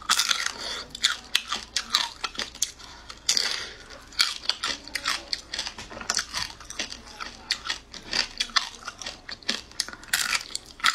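Close-up mouth sounds of eating shrimp: biting and chewing, a rapid, uneven run of wet smacks and sharp clicks.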